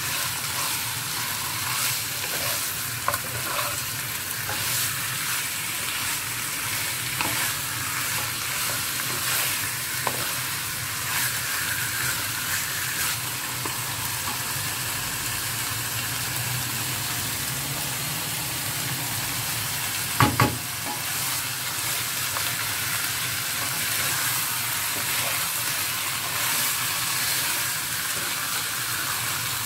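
Chicken pieces sizzling steadily in hot oil and curry paste in a non-stick wok while a wooden spatula stirs and scrapes them around the pan. A sharp double knock comes about twenty seconds in.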